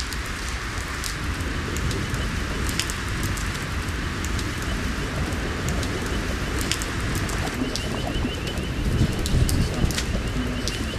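Steady rain falling on wet pavement and puddles, with many scattered sharp drip ticks. Birds are calling, with a quick repeated high chirping from about eight seconds in.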